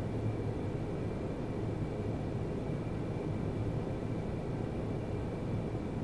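Steady low hum with a faint hiss of background noise, unchanging throughout, with no roar or other distinct sound.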